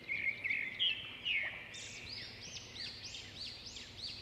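Birds chirping: a run of short repeated calls that sweep up and then down in pitch, about two a second, after a few lower, steadier chirps at the start.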